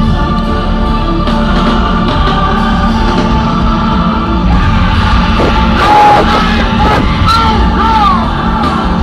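Loud live concert music over a big festival sound system, recorded from in the crowd, with a steady bass line. Gliding vocal lines stand out over the mix from about five seconds in.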